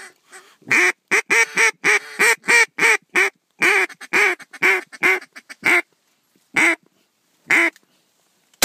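A mallard duck call blown in a fast run of about fifteen loud hen quacks, then two single quacks spaced out near the end, as ducks circle overhead. A single 20-gauge shotgun blast cracks out at the very end.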